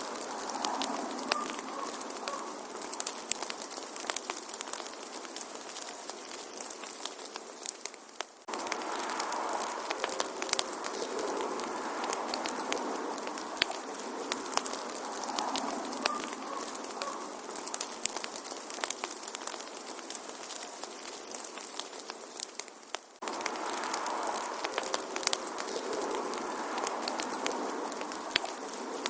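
Wood fire crackling in a fireplace: irregular sharp pops and snaps over a soft steady hiss. Twice, about 8 seconds in and again about 23 seconds in, the sound fades briefly and then cuts straight back in.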